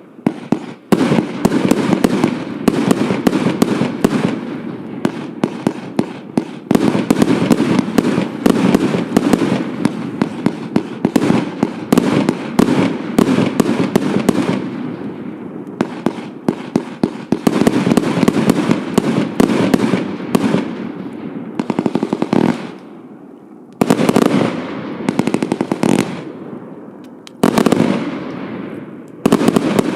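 Vanquish 320-shot compound fireworks cake firing: rapid volleys of launch thumps and bursting shots, broken by a few brief lulls that each end as a new volley starts abruptly.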